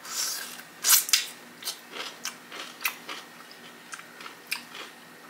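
Crisp crunching of a dill pickle being bitten and chewed close to the microphone: a bite at the start, loud sharp crunches about a second in, then smaller crunches that thin out toward the end.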